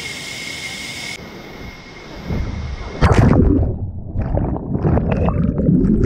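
A plunge into water: a loud splash about three seconds in, then muffled underwater bubbling and churning, heard with the microphone below the surface.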